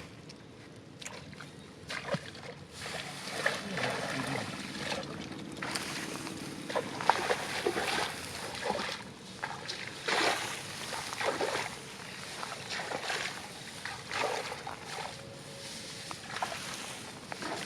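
Irregular splashes and sloshes of water, as of movement through a rain-soaked, waterlogged field.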